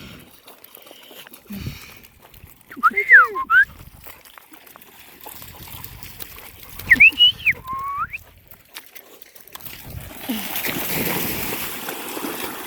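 A person whistling, two short bursts of up-and-down whistled notes about four seconds apart, then water splashing near the end.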